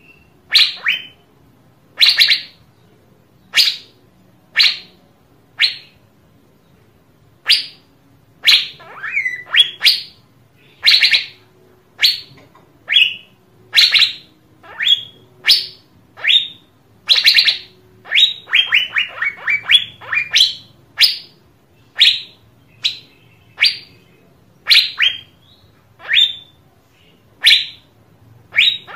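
Asian fairy-bluebird (cucak biru) giving loud, sharp calls about once a second, with quick runs of several notes partway through and again near the end.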